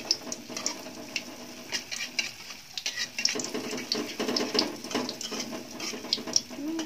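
Apem batter frying in shallow oil in an aluminium wok, sizzling, with a metal spatula scraping and tapping against the wok in short irregular clicks.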